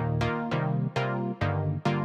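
Background music: an electronic track with plucked synthesizer notes struck on a steady beat, about two a second.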